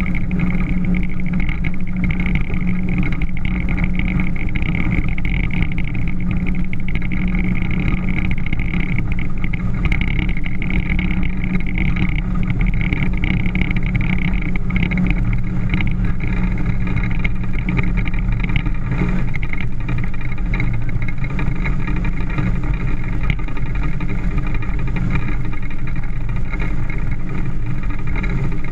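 Motorboat engine running at a steady speed under way, a constant hum over the rush of wind and water.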